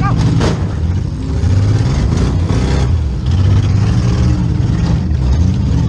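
Demolition derby car's engine running hard from the driver's seat, its pitch rising and falling as the throttle is worked. A short sharp crack comes about half a second in, and a longer rough burst of noise around two and a half seconds in.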